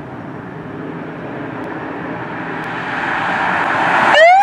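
Police car approaching, its engine and road noise growing steadily louder. Near the end its siren starts with a rising wail.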